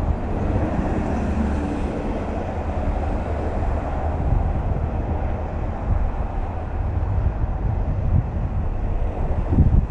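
Steady low rumble of motor-vehicle traffic on a toll road.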